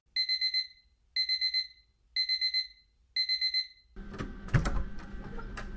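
Electronic alarm beeping: four groups of quick high beeps, one group a second, stopping about four seconds in. Rustling and a few knocks follow.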